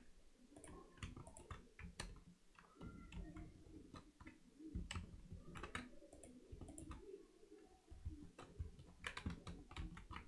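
Faint computer keyboard keystrokes and mouse clicks, scattered and irregular, as keyboard shortcuts are pressed.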